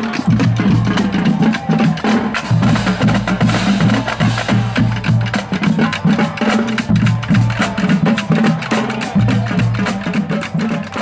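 Marching band playing an upbeat tune: sousaphones pulse a low bass line under fast drum and percussion strikes.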